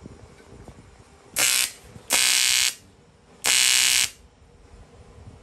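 AC TIG welding arc on aluminium buzzing in three short bursts of about half a second each, the second a little longer than the others: short tack welds fixing an aluminium bracket in place.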